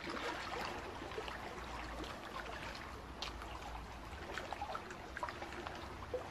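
Liquid sound effect of trickling and dripping, dotted with many small plips, over a low hum, accompanying an animation of liquid-metal drops flowing together.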